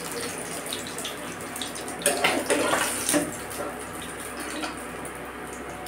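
Fish frying in hot oil in a pan, a steady sizzling hiss, with a metal spatula clattering and scraping against the pan for about a second, two seconds in, as the fried pieces are lifted out.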